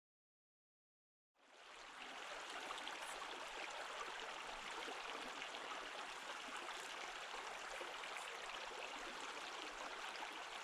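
Silence for about a second and a half, then the rush of a small mountain stream's flowing water fades in and runs on steadily.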